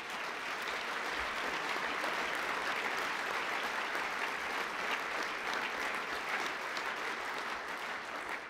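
Audience applauding, steady throughout and thinning out near the end.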